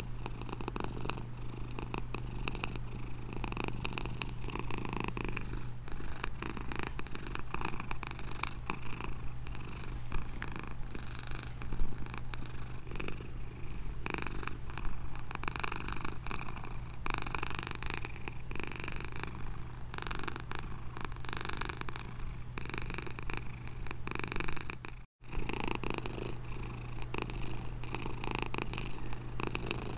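Domestic cat purring continuously, with a brief split-second gap of silence about 25 seconds in.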